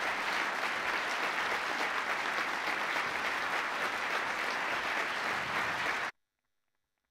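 Audience applauding steadily, cut off abruptly about six seconds in.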